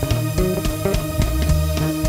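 Instrumental music led by guitar and bass guitar, over a steady percussive beat.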